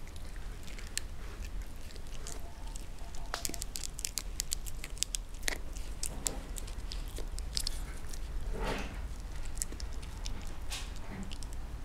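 A small dog gnawing on a chew-bone held in its paws: irregular crunching and clicking of teeth on the hard chew.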